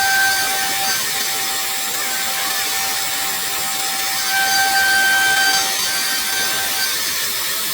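CNC router spindle running and cutting wood: a steady high hiss with a thin whining tone that stops near the end.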